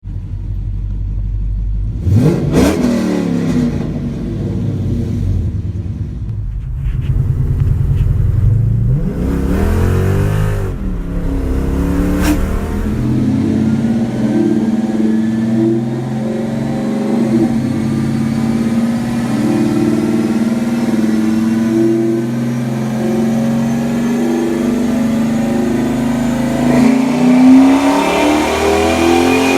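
Chrysler 300 SRT8's 6.1-litre Hemi V8, with headers, no catalytic converters and Magnaflow mufflers, idling and then revved sharply twice. It then climbs slowly and steadily in revs under load for about fifteen seconds, as in a full pull.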